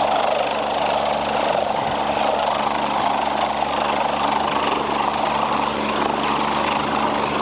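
Helicopter running steadily: a constant rush of rotor and engine noise with a steady low hum underneath, unchanging throughout.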